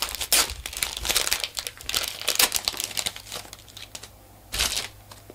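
Foil booster pack wrapper of Pokémon trading cards crinkling as it is opened and handled. There are about three seconds of dense crackling, then it goes quieter with one more short crinkle near the end.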